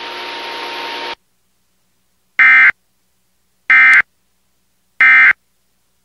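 Emergency Alert System end-of-message signal: three identical short bursts of screeching digital SAME data tones, about 1.3 s apart, that close the warning broadcast. Before them, about a second of steady hiss cuts off abruptly.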